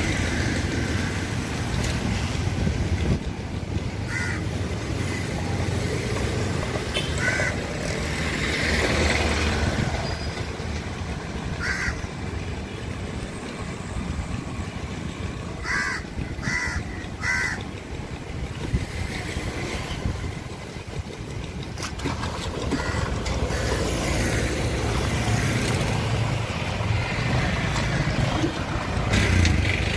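Crows cawing: single caws now and then and three in quick succession about halfway through, over a steady low rumble.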